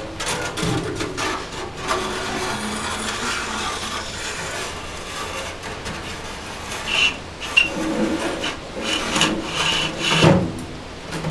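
Sheet-metal stovepipe scraping and knocking as it is slid through the ceiling and worked down onto a wood-burning stove's flue collar, with short squeaks and a louder knock near the end.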